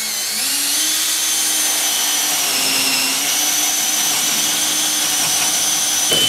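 Cordless drill with a large 1¼-inch bit boring down through the wooden top plate of a wall: a steady motor whine that winds up in the first half second. Its pitch sags a little about two and a half seconds in, as the bit bites harder into the wood.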